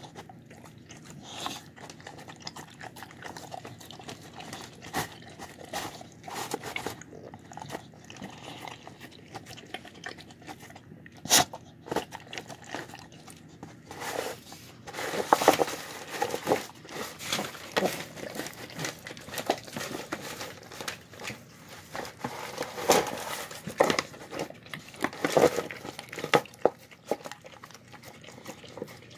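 A dog eating soft home-cooked food (chicken, cabbage, rice and lentils) from a deep bowl: irregular chewing, licking and smacking, with the busiest, loudest stretches about halfway through and again near the end.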